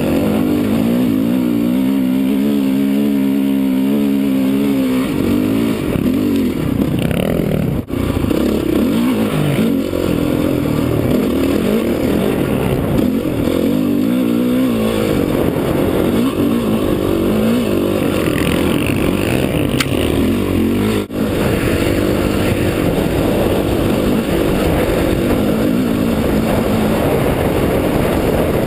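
Dirt bike engine running under load as the bike is ridden over a rough trail, its pitch rising and falling with the throttle, heard from the rider's helmet-mounted camera. The sound cuts out very briefly twice.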